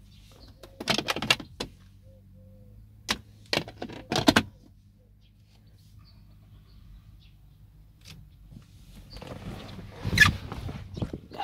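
Clicks and knocks from a car's fittings being worked, over a steady low hum. There are groups of sharp clicks about one, three and four seconds in, and a louder clunk a little after ten seconds, within a rising stretch of noise.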